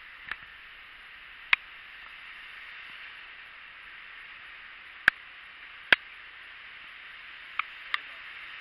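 Steady hiss of wet city-street traffic noise, broken by about six short sharp clicks at irregular intervals.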